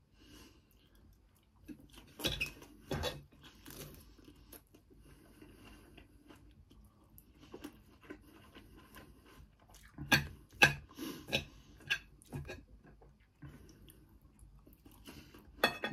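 A person chewing and crunching a mouthful of doner kebab with raw onion: crisp crackling bites in clusters, loudest about two seconds in and again around ten seconds in, with faint chewing between.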